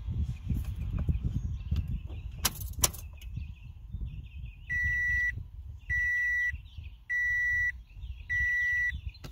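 Two sharp clicks over a low rumble, then a Toyota Yaris dashboard warning chime beeping evenly: four half-second beeps about 1.2 seconds apart, with the ignition switched on.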